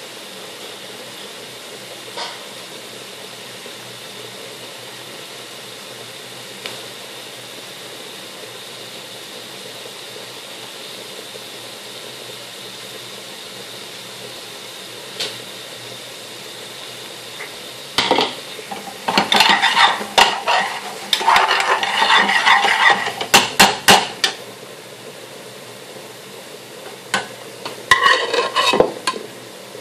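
A steady hiss from chicken curry cooking in an aluminium pan on the hob, broken by a few single clicks. A little past halfway, a long metal spoon starts stirring and scraping against the pan in two spells of clinking, the second near the end.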